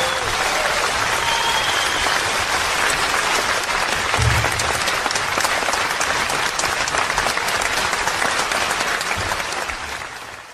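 Audience applauding at the end of a live song recording, fading out near the end.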